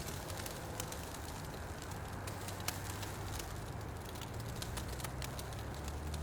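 Fire burning in a fireplace, crackling steadily with frequent small pops over a low, steady rumble; one sharper pop comes a little under three seconds in.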